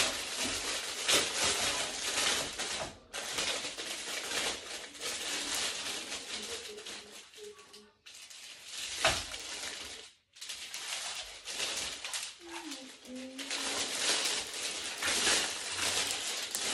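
Plastic protective wrap being pulled and crinkled off a ring light: a dense crackling rustle that stops briefly about three, eight and ten seconds in.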